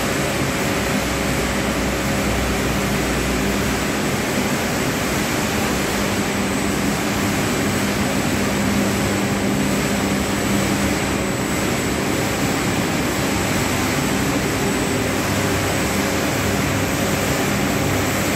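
Grain-cleaning machine running: a steady mechanical drone and hiss of its fans and motors, unchanging throughout.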